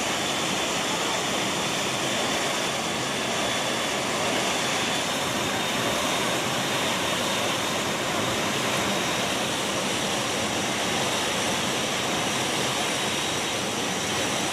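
Steady engine noise of a military transport aircraft in flight, heard inside its cargo hold: a loud, even rush with faint steady high whines running through it.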